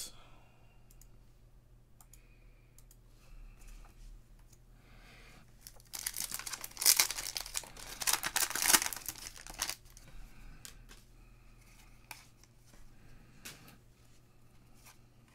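Foil wrapper of a trading-card pack being torn open and crinkled by hand, a crackling burst of about four seconds starting about six seconds in, with faint rustling before and after.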